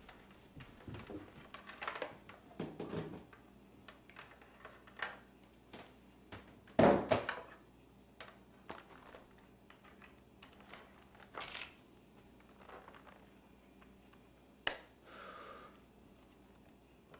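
Laptop parts and a small hand tool handled on a tabletop: scattered light clicks and knocks, with one louder knock about seven seconds in. Near the end comes a sharp click, then a short faint tone.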